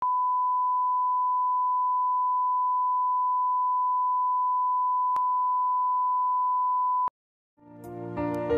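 Steady 1 kHz test tone, the reference tone that accompanies colour bars, with a faint click about five seconds in; it cuts off suddenly about seven seconds in. After a short silence, soft piano-like music fades in near the end.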